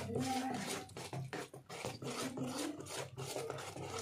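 Spoon stirring thick jackfruit and rice batter in a steel bowl, in quick, even strokes of about three a second.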